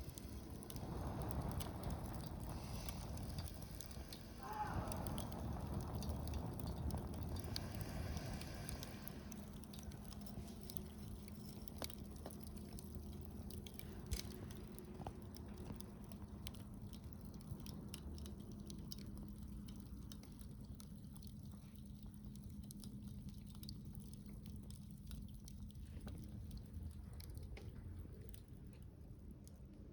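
Wood fire crackling in a Coleman Fire Disc Solo fire pit: scattered small pops and snaps over a low rumble, busier in the first ten seconds, with one sharper pop about halfway through.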